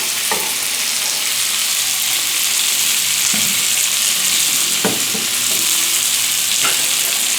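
Rice, squid, mussels and peppers sizzling steadily in a frying pan, with a few knocks and scrapes of a utensil as the risotto is stirred.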